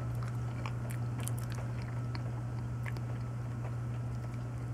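A person chewing a mouthful of banana, with scattered small wet mouth clicks, over a steady low hum.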